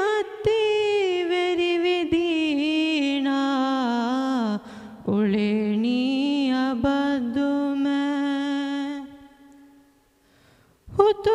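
A teenage boy singing a madhaha, an Islamic devotional song, unaccompanied into a microphone, in long held notes with ornamented slides. He takes a short breath about four and a half seconds in, lets a long low note fade away near the end, then starts the next phrase.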